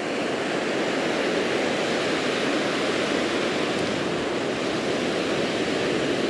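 Ocean surf breaking and washing up a sandy beach close by: a steady, unbroken rush of water and foam.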